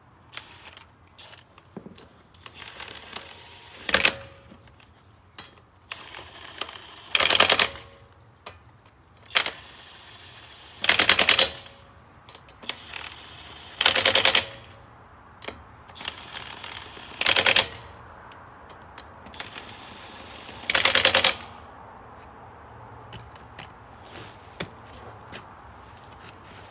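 DeWalt cordless impact wrench hammering lug nuts onto a wheel's studs in seven short bursts, each under a second and a few seconds apart, with small metal clicks between them as the nuts are handled. The nuts are being snugged before the final torque-wrench pass.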